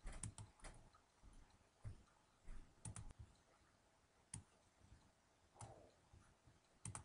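Faint computer mouse clicks, scattered singles and a few quick pairs, in a quiet room.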